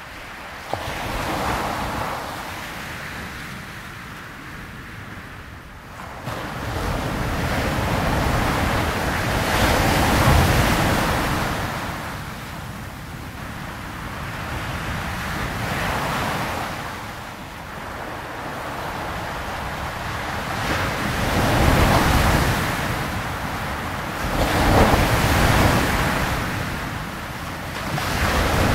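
Sea waves washing in, swelling and fading every few seconds.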